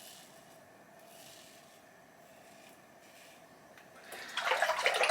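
Faint scraping strokes of a Karve CB safety razor with a Polsilver Super Iridium blade cutting stubble, then about four seconds in, a louder rush of running tap water for about a second as the razor is rinsed.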